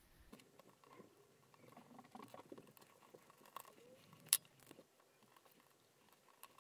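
Faint small handling noises of a MiniDisc player's circuit board and a small screwdriver: light scratches and taps as the board is settled into the chassis, with one sharp click about four seconds in.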